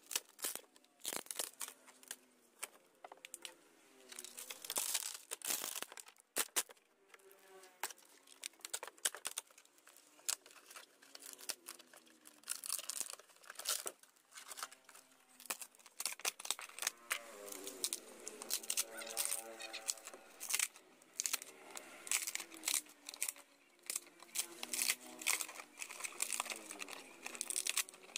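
Plywood mold panels being pried and torn away from the inside of a freshly laid fiberglass boat hull, an irregular run of sharp cracks, snaps and tearing.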